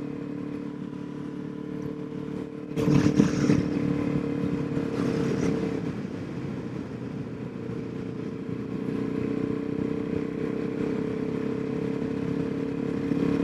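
Suzuki DRZ400SM's single-cylinder four-stroke engine running at a steady speed while riding. About three seconds in a louder rush of noise comes up for a few seconds, then fades back to the steady engine note.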